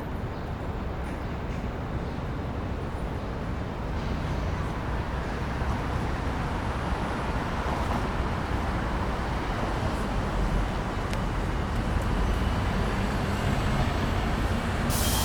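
City street traffic noise: a steady wash of passing vehicles with a low engine rumble that builds and gets louder toward the end.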